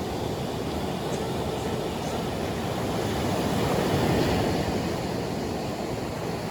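Ocean surf: a steady rush of waves washing onto the beach, swelling about halfway through and easing again.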